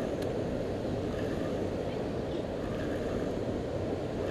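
Steady rush of whitewater churning over rocks below a dam.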